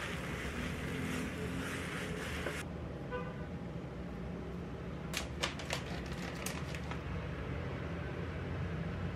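Noodles sizzling as they are stir-fried in an electric pot, a steady hiss that cuts off abruptly about two and a half seconds in. A few sharp crinkles of a plastic seaweed-flake packet follow about five to six and a half seconds in, over a steady low hum.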